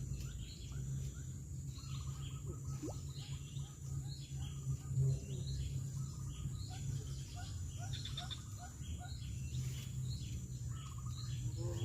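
Birds chirping in short calls that repeat every second or so, with a run of lower chirps in the middle, over a steady low hum.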